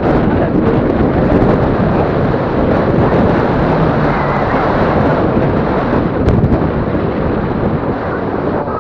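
Wind buffeting the microphone on a moving motorcycle, a loud steady rumble with road and engine noise under it; a brief click about six seconds in.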